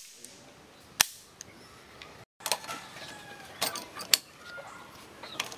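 A single sharp shot from a homemade prototype sub-machine gun pistol about a second in. After a break, several metallic clicks and clacks of gun parts being handled on a workbench vise.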